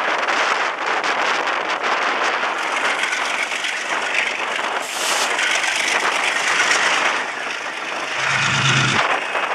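Class 34 GE diesel locomotive under power as the train accelerates, its engine noise mixed with heavy wind rush on a microphone held out of the window. A brief high hiss about five seconds in, and a deeper low drone for about a second near the end.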